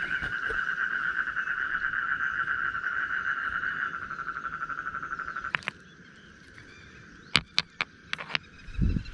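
A toad's continuous rapid trill, fading out a little past halfway. Then several sharp clicks of stones knocking together and a low thump near the end as rocks on the gravel bank are handled.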